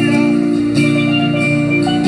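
Steel pan struck with two mallets, playing a melody of ringing metallic notes, with steady lower notes held beneath.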